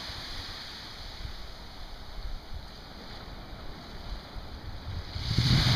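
Wind rumbling on the microphone over the soft wash of small surf on a sandy beach, the surf hiss swelling near the end.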